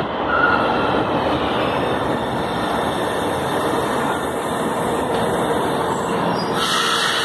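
São Paulo Metro train running past at close range: a steady rumble of steel wheels on the rails, with a brief wheel squeal just after the start. The noise turns hissier near the end.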